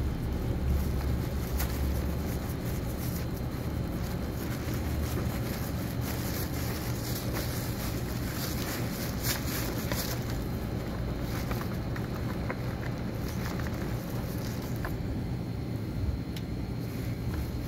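Steady low rumble of background noise, with faint scattered clicks and smacks of a kitten chewing chicken and bones from a plastic plate, most of them around the middle.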